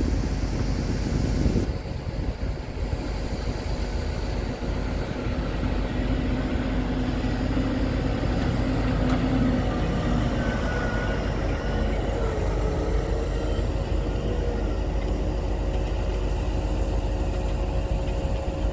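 A heavy vehicle's engine running steadily, a continuous low rumble.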